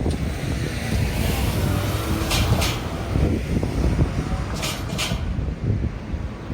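Wind buffeting the microphone in a steady low rumble, with two pairs of short, sharp clacks: one pair about two seconds in and another about two seconds later.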